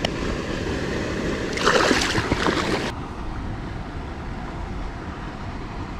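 Steady rushing of water through a spillway, with a brief, louder burst of rustling noise about two seconds in.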